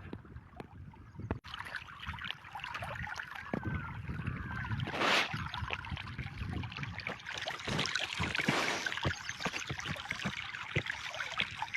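Water flowing and splashing: a steady rush full of small splashes and trickles that grows fuller after about a second and a half, with a brief louder rush about five seconds in.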